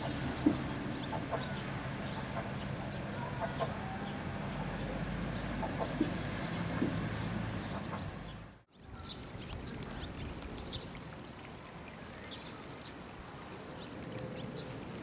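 Outdoor ambience of scattered bird chirps and calls over a steady low engine hum. There are two sharp knocks right at the start as a car's tyres cross the level-crossing rails. The hum and ambience cut off abruptly a little past halfway, then quieter bird calls resume.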